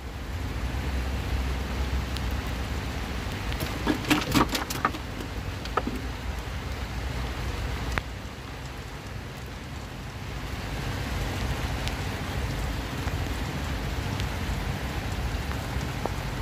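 Steady heavy rain falling, with a low rumble underneath. About four seconds in there is a quick run of knocks, and a single sharp click a few seconds later.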